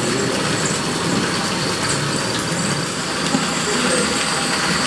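Small artificial waterfall pouring over stone steps and splashing into a pool: a steady rushing splash of falling water.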